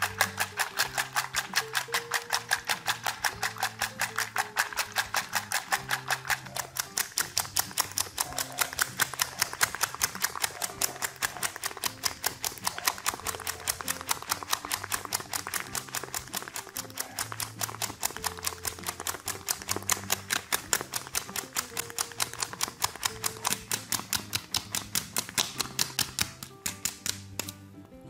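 Wire hand whisk beating eggs in a stainless steel bowl, its wires striking the metal in a rapid, even clicking as the mixture is whipped to a froth; the strokes slow and stop near the end.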